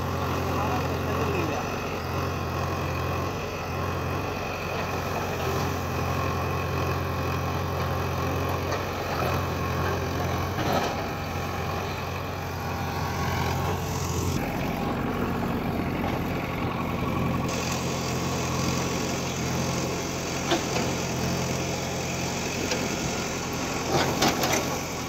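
JCB backhoe loader's diesel engine running steadily, its note changing about halfway through. A few sharp clicks near the end.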